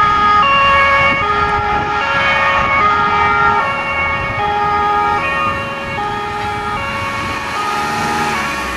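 German two-tone fire brigade siren (Martinshorn) on a fire-brigade van, alternating between a high and a low note about every 0.8 seconds. It grows gradually fainter as the van pulls away, over steady road and engine noise.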